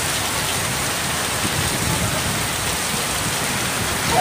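Heavy rain pouring steadily onto a concrete yard, an even, unbroken wash of sound.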